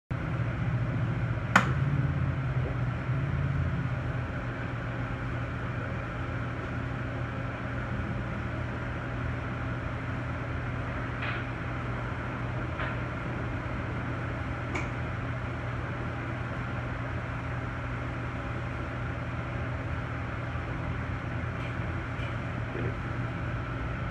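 Steady electrical hum and cooling-fan noise of a powered-up Lincoln PowerWave 455M welding power source, with one sharp click about a second and a half in and a few faint ticks later.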